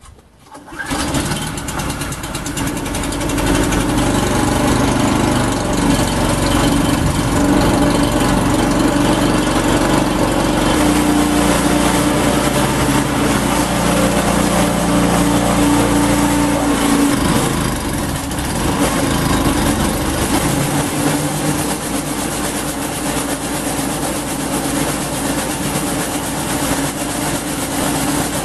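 Garden wood chipper's 5.5 HP Briggs and Stratton engine running loud and steady, with its note shifting twice in the second half. It runs again now that its blocked carburettor main jet has been cleared.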